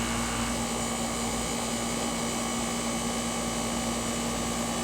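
A 3.5-ton air-conditioning condensing unit running steadily, its condenser fan blowing and compressor humming, while refrigerant is added to a low charge.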